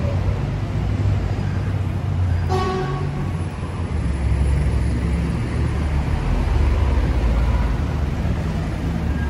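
Busy road traffic at close range: engines of buses, taxis and cars running with a low rumble throughout as a red London bus pulls past. A short pitched toot sounds about two and a half seconds in.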